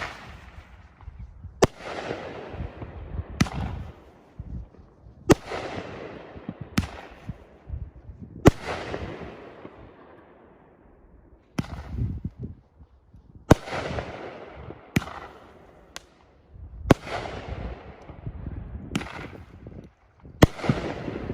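Consumer firework, the 'Pyrology No 2', firing a series of shots: a sharp bang every second or two, about a dozen in all, each followed by a fading crackle. There is a short lull about halfway through.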